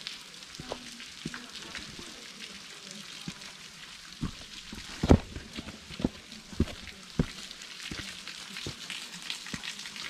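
Footsteps on a trail, thumping about one to two steps a second, the heaviest about five seconds in, over a steady fine crackling.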